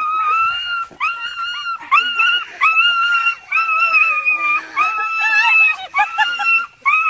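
A dog whining in a string of long, high-pitched cries about one a second, each rising at its start and then held: excited crying on being reunited with its owner.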